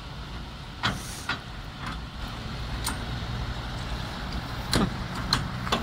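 Heavy recovery truck's diesel engine running steadily, with several short sharp knocks over it.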